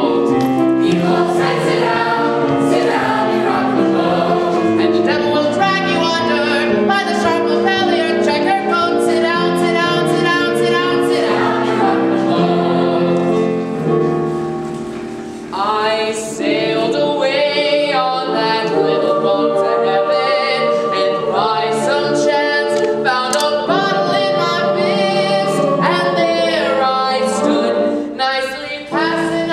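Live ensemble of singers performing a Broadway show tune with musical accompaniment. About halfway through it drops off briefly, then comes back in.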